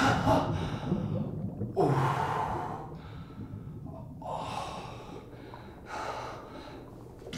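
A man gasping for breath in about four heavy, open-mouthed breaths, the first the loudest and each later one weaker and further apart.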